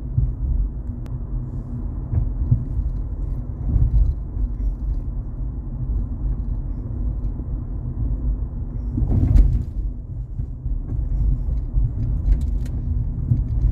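Car road noise heard from inside the moving car: a steady low rumble of engine and tyres. A brief louder thump comes about nine seconds in.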